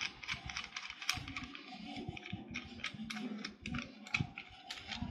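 Plastic phone-holder clamp being handled and pulled open to its widest setting: a string of small, irregular plastic clicks and rattles.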